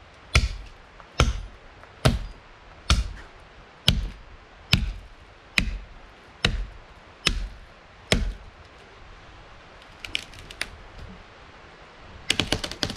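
Axe chopping into the trunk of a dead, dry standing tree: about ten strokes, roughly one a second, stopping about eight seconds in. A quick run of sharp cracks near the end.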